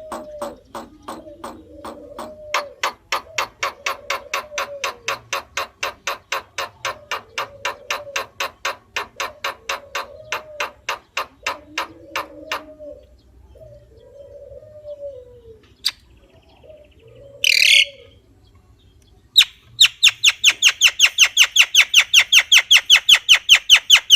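Javan myna calling: a long run of sharp clicks, about four a second, mixed with low warbled notes, then after a pause a loud, harsh rattling series of fast notes near the end.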